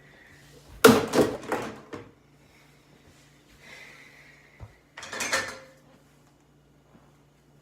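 Dishes and a dishwasher rack clattering in two bursts, about a second in and again around five seconds in.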